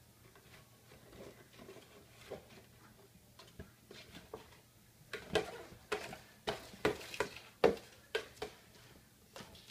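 A cardboard carton being pawed, jumped on and knocked about on a tile floor by a playing kitten: light scratching and rustling at first, then, about five seconds in, a quick run of sharp knocks and scrapes as the box is bumped and shoved across the tiles.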